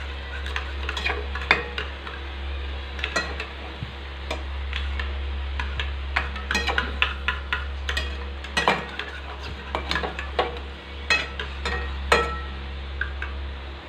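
A metal spoon scrapes and clinks against a metal cooking bowl as hilsa pieces are turned over in a thick mustard-yogurt sauce. The strokes are irregular, with a few louder knocks, over a steady low hum.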